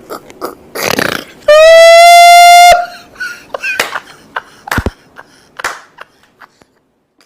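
Cartoon-style comic sound effects in quick succession. A short noisy burst comes about a second in, then a loud, long, pitched blast lasts just over a second. Scattered short squeaks and clicks follow and die away.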